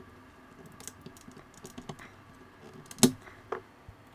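A 40-pin ULA chip being levered out of its socket with a plastic tool and a replacement ULA pressed in on a ZX Spectrum 128K circuit board: light clicks and scrapes, with one sharp click about three seconds in and a smaller one just after.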